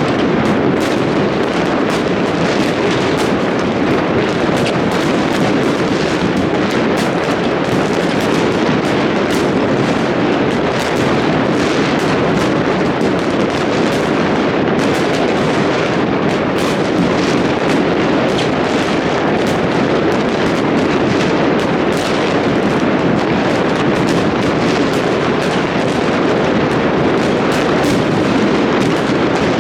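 New Year fireworks going off in a dense, unbroken barrage: many bangs overlapping at a steady, loud level.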